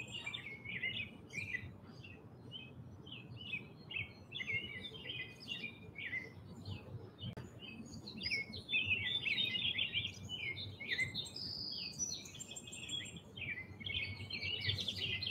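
Songbirds chirping and singing without a break, a dense stream of quick high notes that grows busiest about eight to eleven seconds in and again near the end, over a faint low background rumble.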